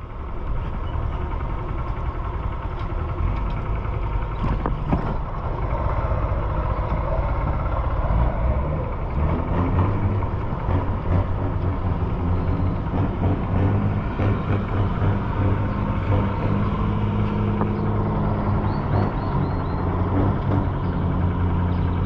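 Motor vehicle engine running steadily with street traffic noise, a constant low engine hum clearest from about halfway through.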